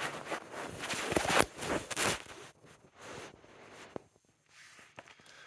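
Handling noise from a phone being moved and set up: rubbing and fumbling against the microphone, loudest in the first couple of seconds, then softer, with a sharp click about four seconds in and another about five seconds in.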